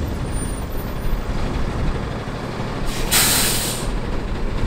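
Flatbed tow truck running at a steady low rumble, with one sharp hiss of released air from its air brakes about three seconds in, lasting about a second.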